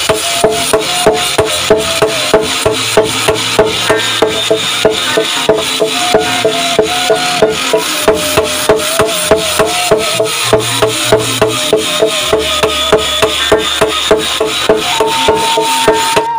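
Hand hammers striking red-hot steel on an anvil in a steady, rapid rhythm, about three blows a second, each blow ringing briefly: blacksmiths pounding out a golok (machete) blade.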